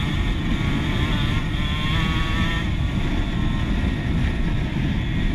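Dirt bike engine running steadily while riding, its pitch wavering slightly in the first couple of seconds, under a heavy rumble of wind on the microphone.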